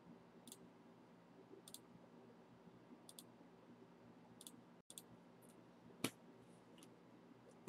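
Faint, scattered clicks and ticks of trading cards and a rigid plastic card holder being handled, with a sharper tap about six seconds in, over a low steady hum.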